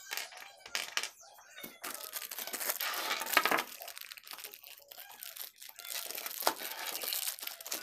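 Thin plastic packaging bags crinkling and rustling as they are handled and slit open with a utility knife, with a few light clicks of small motors and switches set on the table in the first two seconds.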